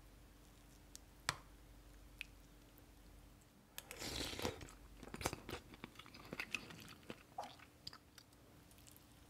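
A metal spoon clicks once sharply against a ceramic ramen bowl, then a few seconds of soft wet squishing and small clicks as rice is worked into the noodles and broth.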